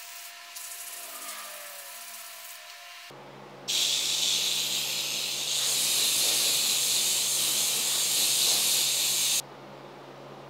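A loud, steady hiss starts about four seconds in, gets a little louder a couple of seconds later, and cuts off suddenly about nine seconds in.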